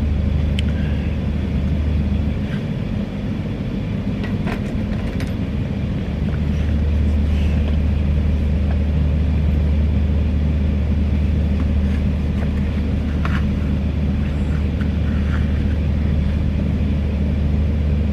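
A steady low machine hum that eases off for a few seconds about two seconds in, then returns, with a few faint clicks and rustles of things being handled.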